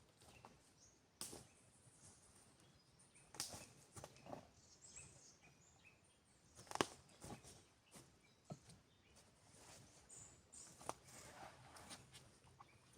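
Quiet forest ambience with faint bird chirps, broken by occasional soft crunches and knocks, the loudest about two-thirds of the way through.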